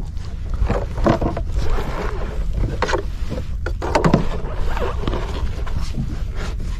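Water lapping and slapping against the hull of a small boat drifting at sea, in irregular splashes over a steady low rumble of wind on the microphone.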